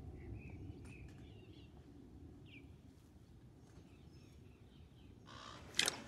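Faint outdoor background with a few brief bird chirps and one short gliding call over a low, steady rumble. Near the end comes a short, loud burst of noise.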